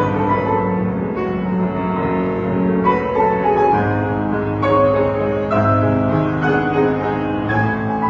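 Background music: a gentle piano-led instrumental with sustained bass notes changing about once a second.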